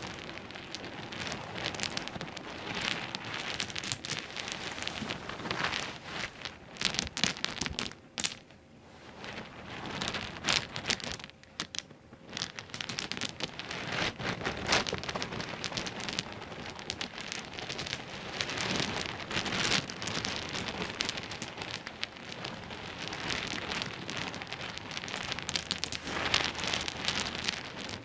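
Small pebbles knocking and clattering against each other in a dense run of clicks, with short lulls about eight and twelve seconds in.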